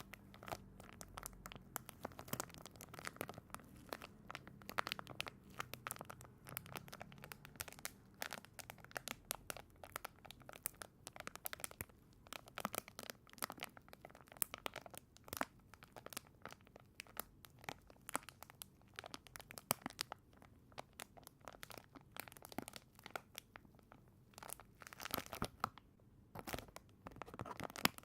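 The individual wrapper of a steam eye mask crinkling and tearing as it is handled and opened: a dense run of small crackles and crinkles, louder near the end.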